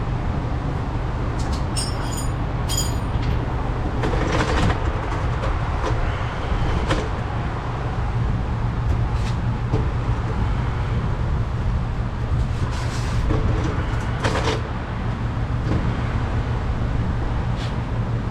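A steady low hum, with scattered clinks and knocks of things being handled.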